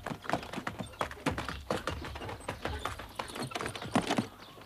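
Horse hooves clip-clopping at a walk, several clops a second, as a horse-drawn cart passes; the clops fade away near the end.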